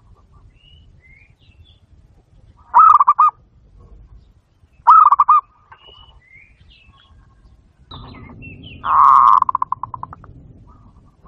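Zebra dove (perkutut) cooing: two short, quickly pulsed coos about two seconds apart, then a longer coo near the end that trails off into rapid pulses.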